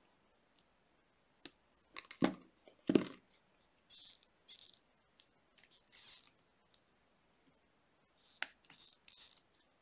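Copper jewellery wire being wrapped by hand with pliers: a few sharp metallic clicks, then short scratchy rasps as the wire is pulled through and wound around the ring's coils.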